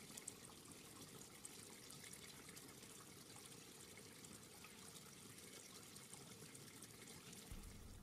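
Very faint trickle of running stream water.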